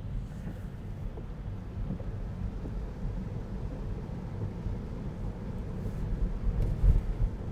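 Low, steady road and tyre rumble heard inside the cabin of a 2020 Tesla Model 3 electric car on the move, with no engine note, and one louder low thump about seven seconds in.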